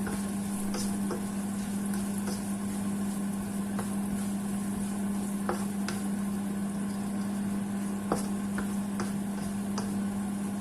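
Food frying gently in oil in a pan on low heat, with occasional clicks of a utensil against the pan, over a steady low hum.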